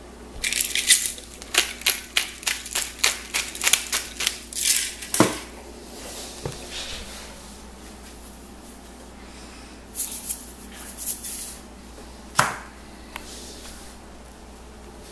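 Seasoning shaker shaken over food in quick rattling strokes, about three a second for several seconds, then set down on the counter with a knock. A shorter rattle and another knock follow later.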